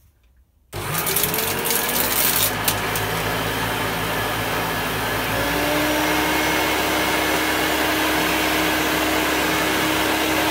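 Hoover Turbopower Freedom U2662 upright vacuum cleaner switched on under a second in, its motor spinning up with a rising whine and then running steadily on a freshly fitted belt and brush bar. A crunching crackle in the first few seconds of the run is what the owner takes for rubbish picked up off the floor.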